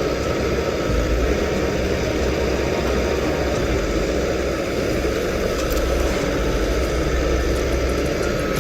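Diesel engine of a forestry forwarder running steadily at a constant level.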